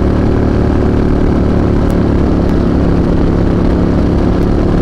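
Harley-Davidson touring motorcycle's V-twin engine running at a steady cruising speed, with an even, unchanging engine note.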